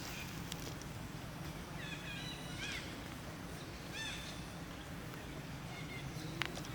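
Short high chirping animal calls, a few in a row about two seconds in and again about four seconds in, over a steady low hum, with a sharp click near the end.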